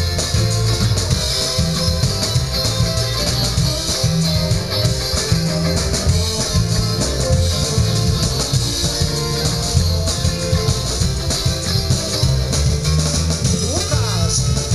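Live band playing on an open-air stage: drum kit, upright double bass and saxophone over a keyboard, with a steady driving beat and a strong bass line.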